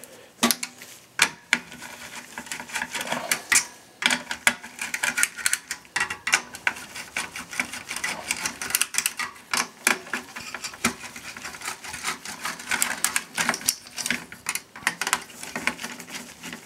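Irregular clicks, ticks and small metal scrapes of a screwdriver loosening the screws of a CPU heatsink and fan and handling the heatsink inside a desktop PC's steel case.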